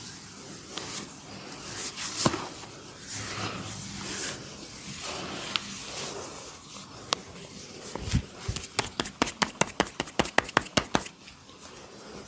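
Hands rubbing and kneading during a head massage, with one sharp crack a little after two seconds. Then a rapid run of about twenty sharp taps or cracks, about eight a second, lasting some two and a half seconds.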